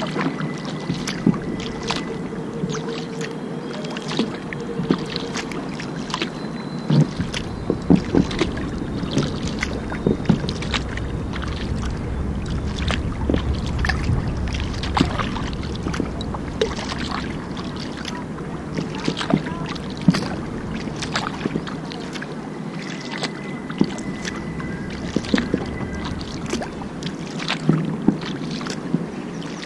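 Kayak paddle strokes: the blades dip and splash at irregular intervals, with drips and water slapping against the hull over a steady wash of water. A low rumble comes in after several seconds and fades again before the end.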